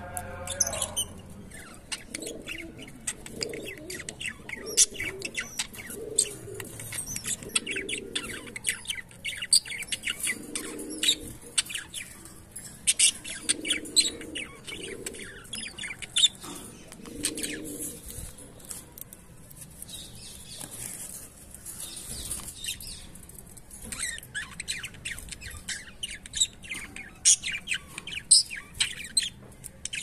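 Cockatiels chattering: many quick, short high chirps and clicks, with a low cooing that comes every few seconds in the first half.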